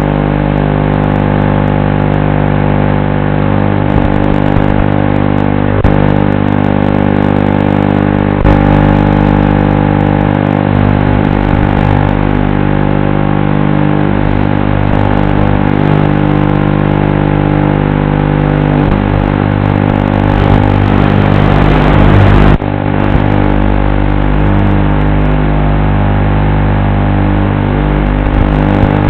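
FPV quadcopter's electric motors and propellers whining steadily, loud and close. About twenty seconds in the whine rises in pitch, then it drops off suddenly before settling back to a steady whine.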